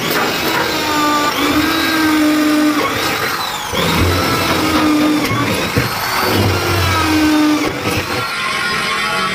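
Hand-held electric power tool whining at speed, its pitch sagging and recovering about once a second as it is pressed into the work.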